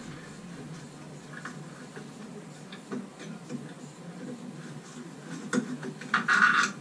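Screwdriver turning the screw out of a shower valve's metal trim plate: faint, scattered small metal clicks and ticks, with a louder, noisier burst of scraping about six seconds in.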